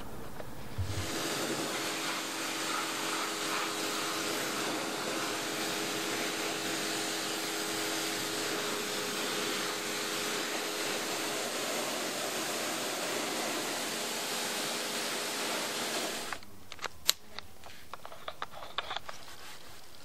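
Electric pressure washer running with its water jet spraying: a steady hiss with a motor hum under it, starting about a second in and cutting off suddenly about sixteen seconds in, followed by a few light clicks and knocks.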